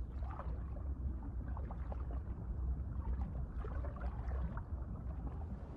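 Underwater sound around a swimming Weddell seal: a steady low rumble of water rushing past, with a few faint, scattered bubbling clicks.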